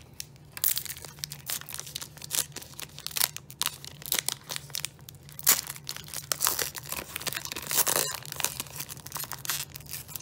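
A hockey card pack's plastic wrapper being torn open and crinkled by hand: a dense run of crackling and tearing that starts about half a second in.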